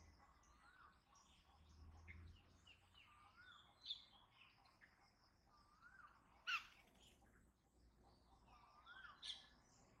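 Several birds calling: one repeats a short rising-and-falling whistled note every two to three seconds, another gives three sharp, loud chirps, and softer high twittering goes on underneath.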